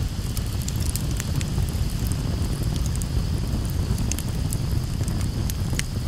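Wood campfire crackling, with frequent irregular sharp pops and snaps over a steady low rumble.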